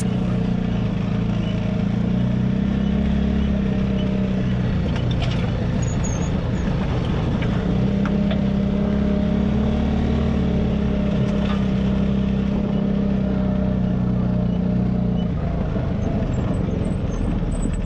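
Offroad vehicle's engine running steadily while driving a rough dirt track, with road noise from the tyres and body, heard from inside the cab. The engine note eases a little near the end.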